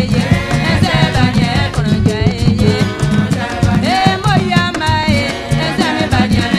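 A song: a melodic singing line over a steady bass line and percussion.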